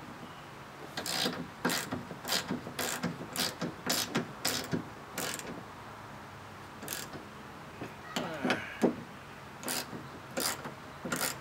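Hand ratchet clicking in short strokes as the mounting bolts of a kayak landing-gear bracket are run down tight, about two clicks a second for some four seconds, then a pause and a few more scattered clicks.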